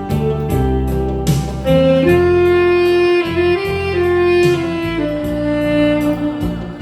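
Saxophone playing a melody in long held notes over a recorded backing accompaniment.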